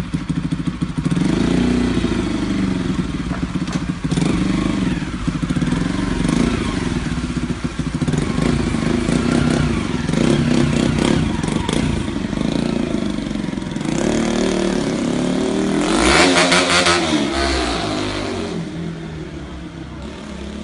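Bajaj Pulsar 200 NS single-cylinder engine running through a drilled exhaust with its plug removed, for a fuller sound. The revs rise and fall repeatedly, peak about sixteen seconds in, and then fade as the motorcycle rides away.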